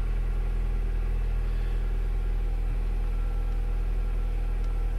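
2010 Nissan Sentra's engine idling steadily, heard from inside the cabin as an even low hum. The heater blower adds nothing: it has failed and gives no fan speeds at all.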